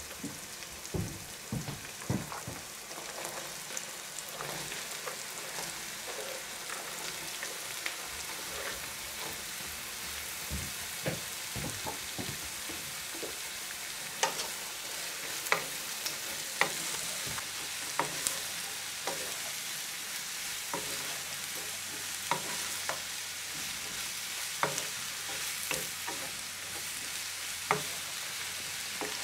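Food sizzling in a frying pan, a steady hiss with scattered clicks and scrapes of a utensil stirring it.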